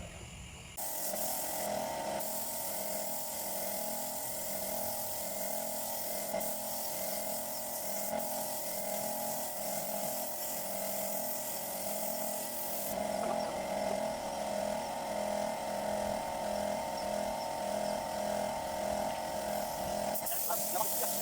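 A handheld electric power tool running steadily with a continuous whine and hiss, switched on a little under a second in.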